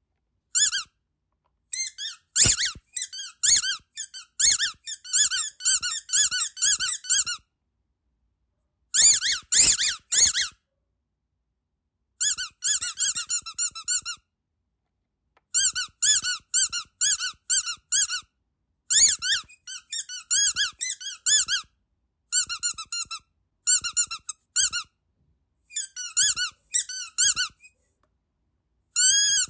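Rubber duck squeaky dog toy being squeezed in quick runs of high-pitched squeaks, several squeaks a second, with short silent pauses between the runs.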